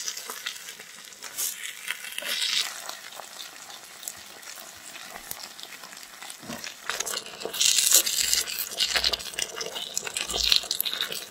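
Spicy baby octopus stir-fry sizzling and crackling in a small black pan as it is stirred with a tiny wooden spatula. The sizzle gets louder about seven seconds in.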